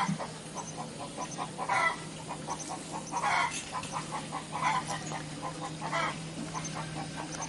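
Domestic poultry calling: a run of short clucking notes several times a second, with a louder call about every second and a half. A steady low hum runs underneath.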